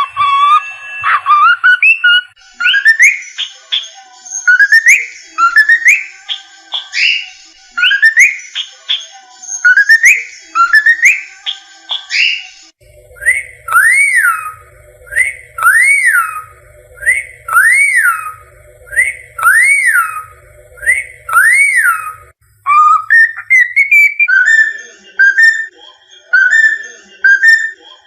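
Cockatiel whistling in repeated phrases: a run of upward-sweeping notes about one a second, then a run of rising-and-falling whistles, then quicker short notes over the last few seconds.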